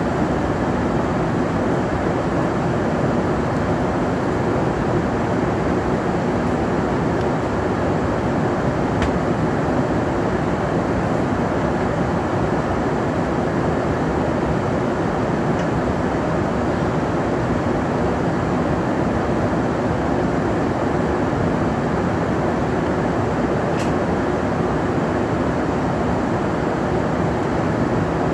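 Steady cabin noise inside a Boeing 747-400's upper deck: a dense, even rush with a faint low hum underneath, unchanging throughout.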